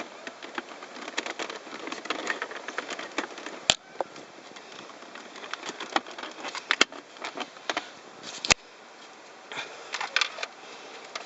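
Plastic interior trim of a 2006 Mazda3's centre console being handled and pressed into place: a run of small clicks and rustles, with two sharp clicks, one a few seconds in and another about five seconds later.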